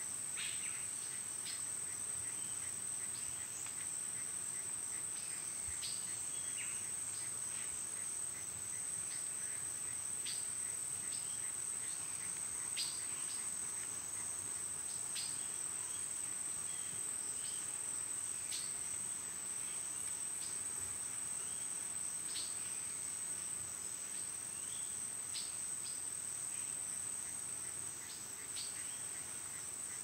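Amazon rainforest ambience: a steady, high insect drone runs throughout, with brief bird chirps scattered through it.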